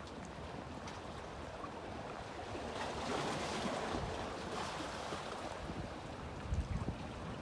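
Sea waves washing, swelling about three seconds in, with wind buffeting the microphone in a few low thumps near the end.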